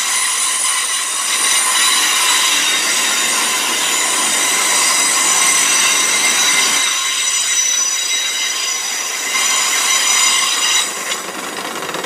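Two coupled Heathrow Express Class 332 electric units rolling slowly round the curve into the platform, their wheel flanges squealing against the rail in several high steady tones over the rumble of the wheels: a horrible flange squeal. The squeal eases about eleven seconds in.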